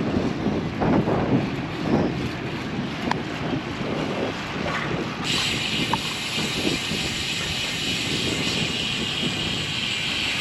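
Wind rushing over the microphone with road noise from a road bicycle being ridden, gusting unevenly. About halfway through, a steady high hiss joins in and continues to the end.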